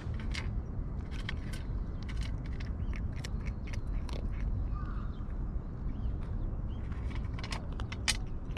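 Two cats eating their food: irregular crunching and smacking clicks of chewing over a steady low rumble.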